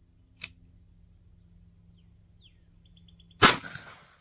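.45 Colt handgun firing a single Barnes Vor-TX round across a chronograph, about three and a half seconds in, with the report echoing away afterwards. A single click comes about half a second in.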